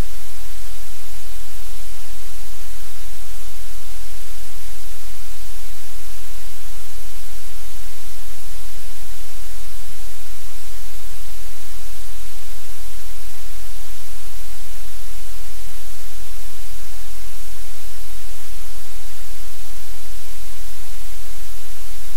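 Loud, steady static hiss with a low hum beneath it, unchanging, with no other sound standing out.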